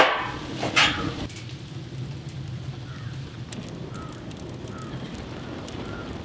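Wood fire burning inside a steel oil-drum stove, crackling and popping with a steady low rumble. Two louder, noisy sounds come within the first second.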